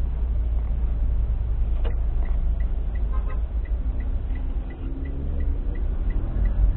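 Car driving slowly in city traffic, heard from inside the cabin: a steady low engine and road rumble. A sharp click comes about two seconds in, followed by even, small ticks about three a second.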